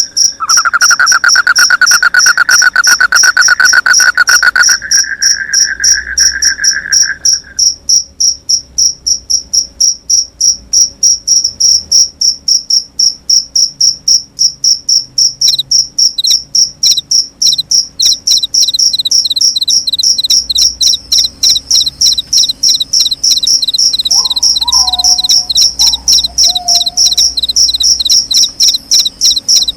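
Several crickets chirping in fast, steady pulses, a second chorus joining about halfway through. A lower-pitched trill sounds for the first seven seconds or so, and a short lower call comes about 24 seconds in.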